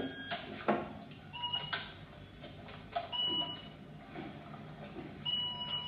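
A simple electronic tune of clear, held beeping notes at a few pitches, like a toy or music-box melody, with a few light knocks among the notes.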